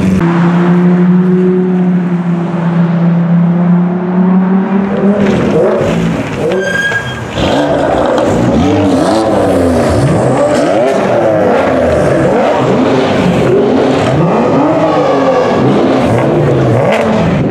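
Lamborghini Aventador V12 running at a steady idle. About five seconds in, sports-car engines are revved hard in quick, repeated blips, the pitch rising and falling again and again.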